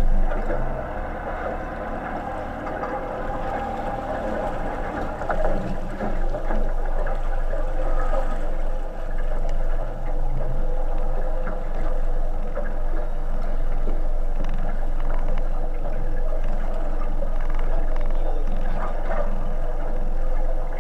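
Steady wash of water and wind noise aboard a small boat at sea, with a low continuous hum underneath.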